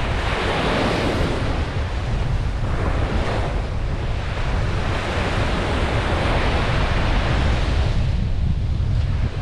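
Ocean waves breaking and washing up a beach, the surf swelling and easing in slow surges every few seconds, with wind buffeting the microphone as a steady low rumble.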